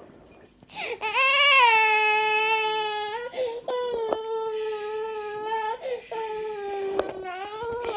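Toddler crying in long, loud wails, three in a row, the first starting about a second in.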